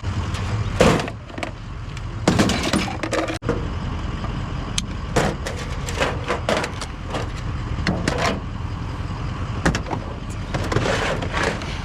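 Irregular knocks and clatter of discarded household items, plastic and metal scrap, being picked up and loaded, over a steady low rumble like an idling vehicle.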